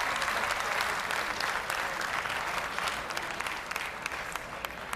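Audience applauding, a dense patter of clapping that dies away gradually over the last couple of seconds.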